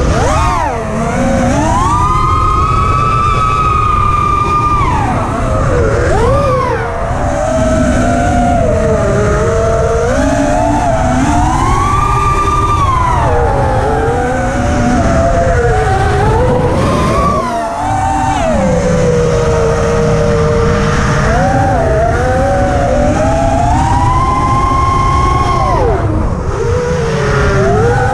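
Armattan Rooster racing quadcopter's brushless motors and propellers whining as heard from its onboard camera. The pitch rises and falls continuously with the throttle, over a steady low rumble.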